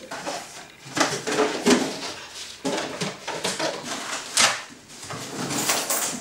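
A stiff white bag crinkling and rustling in irregular bursts as it is picked up and handled.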